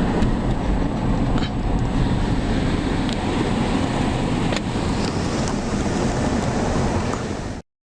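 Steady low rumble of a car driving, road and engine noise, with a few faint clicks; it cuts off abruptly near the end.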